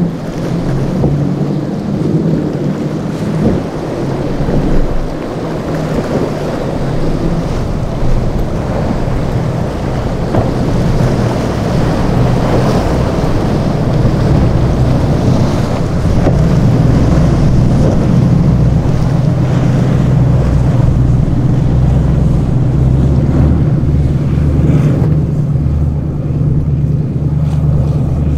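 Boat engines running through rough inlet water, with waves and wind buffeting the microphone. The low engine drone grows stronger about halfway through and holds steady.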